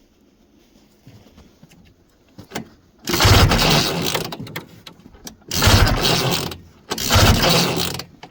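The recoil pull-starter on a 1971 Ski-Doo Olympic snowmobile is pulled three times, each pull turning the two-stroke engine over for about a second without it firing. The engine is being cranked to check for spark on a sled that won't start.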